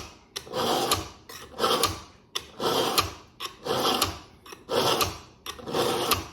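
Dull fillet knife being pulled again and again through the blue sharpening rods of an EdgeMaker Pro knife sharpener. Each pull makes a rasping scrape, about nine strokes in a steady rhythm, a bit more than one a second.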